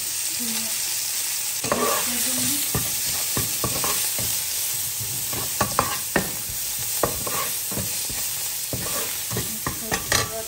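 Green chillies, fresh coriander and ground spices sizzling in hot oil in a non-stick kadai, with a slotted metal spatula stirring and scraping against the pan in quick irregular strokes. The strokes start about two seconds in and are sharpest near the end.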